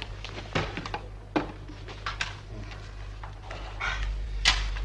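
Scattered clicks and knocks of a serving tray and dishes being set down and handled on a counter, over a steady low hum. The hum grows louder near the end, where a sharp knock stands out.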